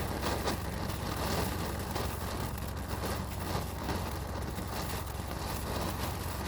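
A ground firework fountain spraying and crackling steadily, cutting off suddenly at the end, over a steady low hum.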